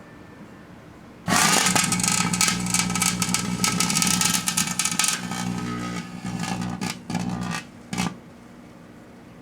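Flashing fountain firework going off inside a running microwave oven. About a second in it catches with a sudden loud hissing, crackling spray over a buzzing hum, and sputters unevenly for about six seconds. It gives one short last burst near the end, and then only the oven's low hum is left.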